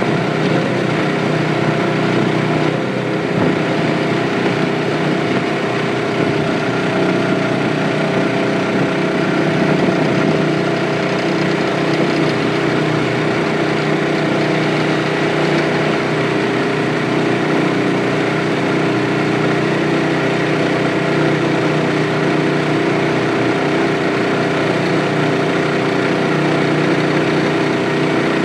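A small boat's motor running steadily while under way, its pitch and level holding even throughout.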